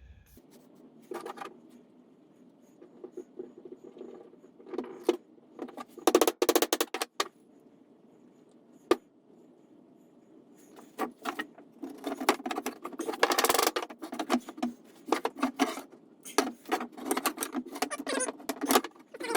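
Timber pieces knocking and rattling against each other in quick, irregular runs of clicks as dowel-jointed parts are pushed and fitted together.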